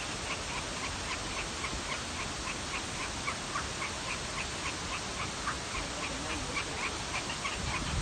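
A brood of downy waterbird nestlings in a stick nest giving short, high begging calls, several a second, over a steady hiss.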